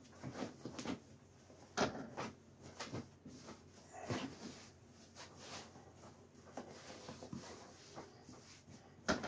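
Soft fabric rustling and handling noise as a cloth cover over foam pet-stair blocks is lifted and turned, with a few soft knocks, the clearest about two seconds in and just before the end.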